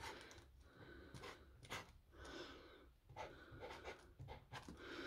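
Faint, short scratching strokes of a permanent marker writing on a plastic battery case.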